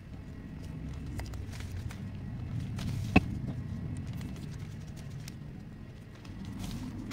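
Sheets of newspaper being handled and folded, with faint scattered rustles and taps, over a low rumble that swells and then fades. A single sharp click about three seconds in.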